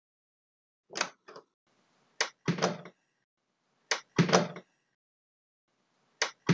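Door sound effects of a virtual house walkthrough: a softer pair of clicks about a second in, then three times, about two seconds apart, a sharp latch click followed at once by a heavier door knock.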